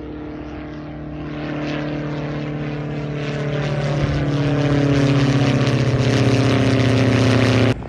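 Propeller aircraft flying over low, its steady engine and propeller drone growing louder with a slight fall in pitch as it comes overhead, then cutting off suddenly near the end.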